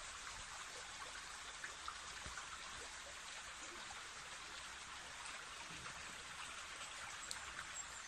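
Faint, steady outdoor hiss with a slight low rumble and a few light ticks.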